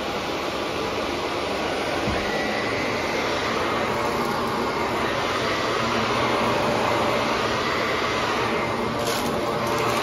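Shark Navigator Anti-Allergen upright vacuum cleaner running steadily with a faint high whine as it is pushed over carpet.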